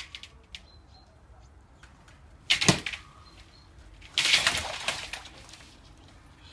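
Rubber-booted feet striking thin ice over standing water: a sharp crack about two and a half seconds in, then a longer crunch and crackle of breaking ice about four seconds in.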